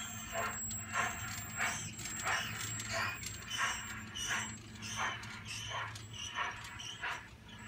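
Large-scale model train running on its track, with a regular clacking about one and a half times a second over a steady low hum.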